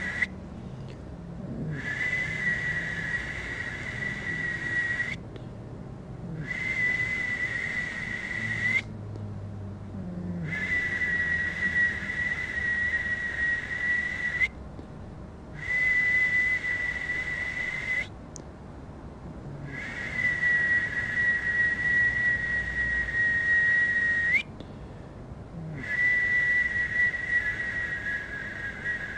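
Long, steady, high whistled notes, each held for a few seconds with short breaks between them, as if for breath. One note ends in a quick upward slide.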